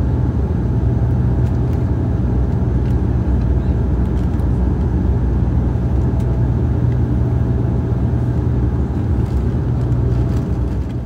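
Steady drone of a Dash 8-100 twin-turboprop's engines and propellers heard inside the passenger cabin, a strong low hum under a broad rushing noise.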